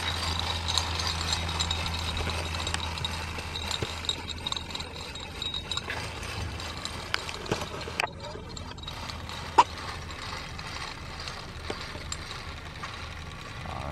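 1960s Wilesco live-steam toy steam roller running along a concrete sidewalk: its small steam engine and gearing give off a busy rattle of small mechanical ticks and clicks as it rolls. A low hum fades out about six seconds in, and one sharp click comes just before ten seconds in.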